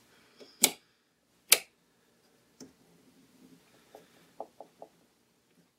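A 12-volt toggle switch snapped back and forth, two sharp clicks about a second apart, followed by a softer click and a few faint ticks and taps as fingers handle the switch in its plastic mount.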